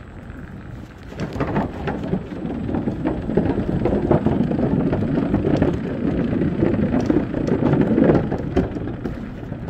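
Rumbling, crackling noise buffeting the microphone, swelling about a second in, peaking twice and easing near the end.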